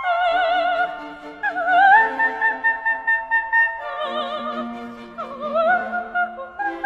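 Operatic singing over background music: a few long held notes with a wide vibrato, each reached by a short upward slide.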